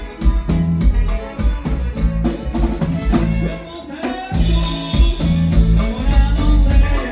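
Norteño band music with a steady bass and drum beat, dropping back briefly a little past the middle before the full band returns.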